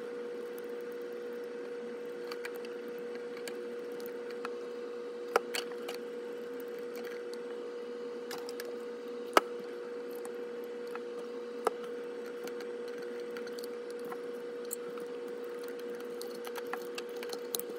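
A few sharp clicks and taps, three of them louder, as the small parts of an HO model locomotive's motor and truck are handled and cleaned with a cotton swab, over a steady faint hum.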